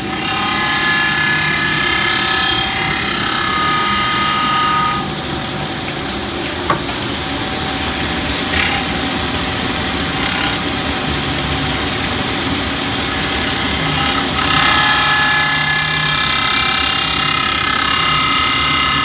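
Band saw grinder running steadily. Twice, for about five seconds at the start and again near the end, a high, ringing whine rises over the motor as the tool works the piece. There is a single sharp click about seven seconds in.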